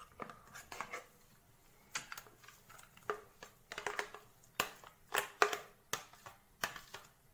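A plastic mixer-grinder jar knocking and scraping against a steel bowl while coarsely ground chana dal batter is emptied out of it: a string of irregular sharp taps and knocks, the loudest about five seconds in.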